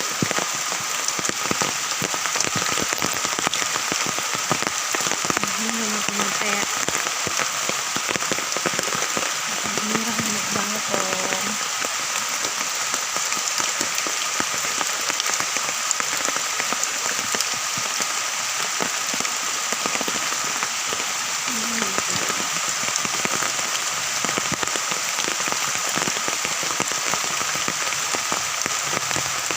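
Steady heavy rain falling, countless drops ticking.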